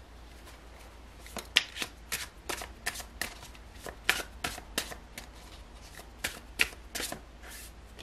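A deck of tarot cards being shuffled by hand: an irregular string of crisp card snaps and flicks, starting about a second in and stopping just before the end.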